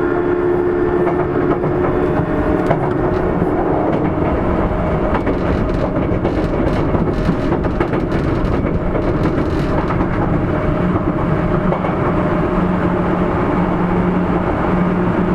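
Sotetsu 8000 series electric train running on the line: steady rumble of wheels on rail, with the hum of the Hitachi IGBT-VVVF inverter and traction motors. A higher motor tone fades away early on and a lower steady tone grows stronger later, with a few faint rail clicks in between.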